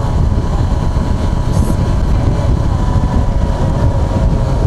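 Heavy wind rush over the helmet-mounted microphone, with the steady drone of a Yamaha FZ6R's engine, on a motorcycle cruising at about 45–47 mph.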